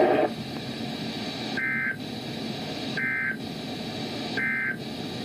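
Emergency Alert System end-of-message code on NOAA Weather Radio: three short bursts of two-tone digital data warble, about a second and a half apart, over steady radio hiss. The bursts signal the end of the alert message.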